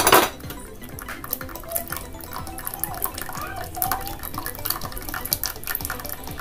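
A thin stream of melted palm jaggery syrup pouring and dripping onto fenugreek paste in a metal pan, heard as a run of small ticking drips. A single knock sounds at the very start.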